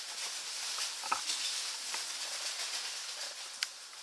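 A hand rummaging through raffle slips inside a fabric bag, making a steady papery rustle with a few small clicks.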